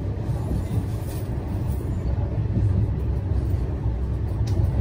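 A tram running along its track: a steady low rumble with a few faint clicks.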